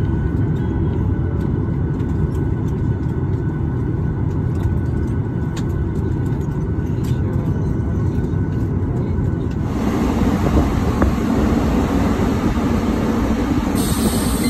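Cabin noise of a Boeing 737-800 taxiing: the CFM56 engines' steady low rumble heard through the fuselage, with faint scattered clicks. About ten seconds in it gives way abruptly to a louder, hissier outdoor noise on the apron beside the aircraft.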